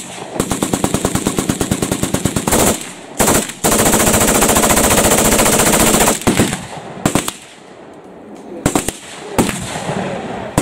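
Several machine guns firing full-auto at once. A rapid burst of about ten shots a second gives way to a few seconds of dense, unbroken fire, then thins out to scattered single shots and short bursts.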